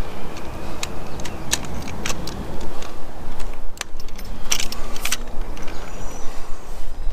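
Clicks and light knocks from handling a transducer pole, a few seconds apart, as the transducer mount is seated in its end and the locking collar is worked. A steady low rumble sits under them.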